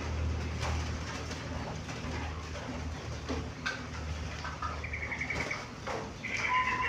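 Zebra dove (perkutut) calling. A brief high twitter comes about five seconds in, then near the end a rapid string of even notes begins, over a faint low rumble.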